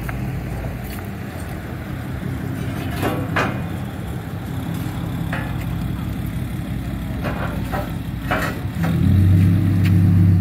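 A vehicle engine idling steadily, growing louder about nine seconds in, with a few brief knocks and rattles.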